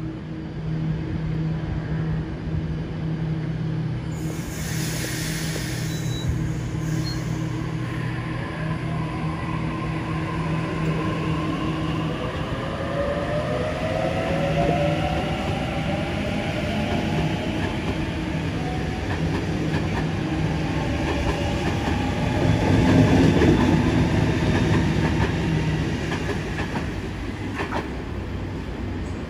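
Sydney Trains double-deck electric passenger trains. One pulls away with a steady electric hum that turns into a rising motor whine as it picks up speed. Around 22 seconds in, a Waratah set passes close by and its wheels clatter on the rails, the loudest part.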